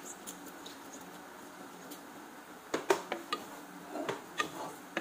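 Wooden spoon stirring in a pot, knocking and scraping against its sides and rim in a run of sharp clicks and knocks from a little past halfway.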